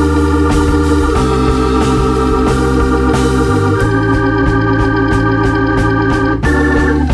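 Background music: a sustained electric organ playing chords over a pulsing bass line.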